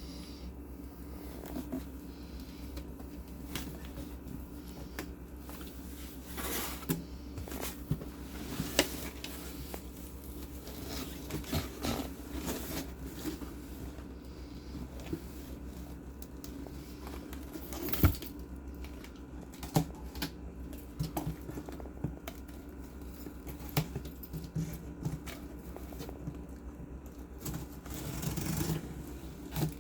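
Packaging of a PC case being handled and unwrapped: scattered rustles, clicks and light knocks, with one sharper knock about eighteen seconds in, over a steady low hum.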